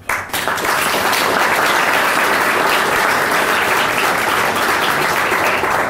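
Audience applauding, starting all at once and holding steady.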